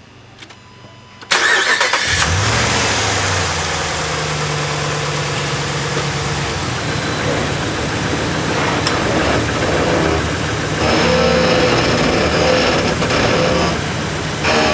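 Pickup truck engine cranking and starting about a second in, then running steadily at idle, just after an oil change.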